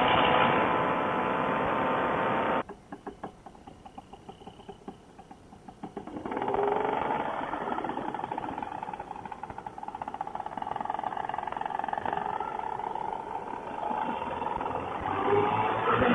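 Paramotor engine running, cutting off abruptly about two and a half seconds in, followed by a few seconds of faint clicking; a steady engine sound returns about six seconds in and rises in pitch near the end.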